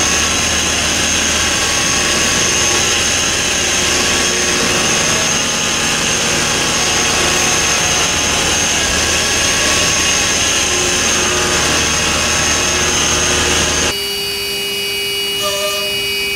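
CNC turning center milling grooves into a chucked part with a driven live tool: dense, steady machining noise with a high whine. About 14 seconds in it cuts suddenly to a vertical machining center's end mill cutting under flood coolant, a quieter, steadier sound with a steady tone and a few short higher tones.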